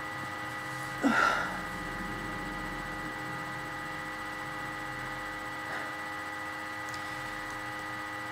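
Steady electrical hum made of several fixed tones, with one short louder noise about a second in.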